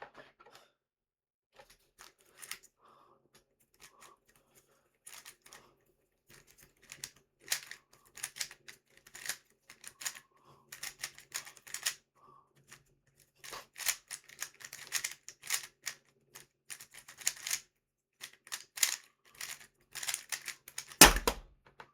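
Moyu WRM V10 magnetic 3x3 speed cube being turned fast during a timed solve: rapid, irregular clacking of the turning layers, sparse at first, then dense. One loud slap near the end.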